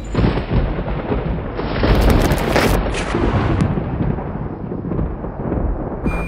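Loud, dense rumbling noise with crashes, a thunder-like soundtrack effect, swelling to its loudest about two seconds in. Thin ringing tones join just before the end.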